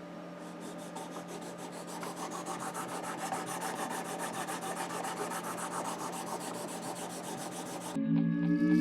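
Ceramic stone of a Worksharp Precision Adjust sharpener being stroked along a knife edge, a steady, rapid rubbing scrape. Music starts near the end.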